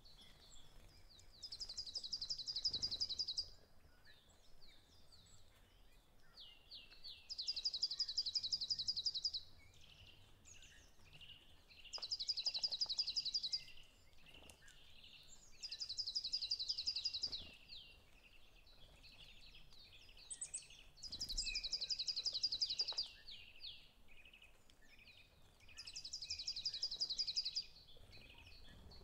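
Birdsong: a fast, high trill lasting about two seconds, repeated every four to five seconds, with quick falling chirps in between.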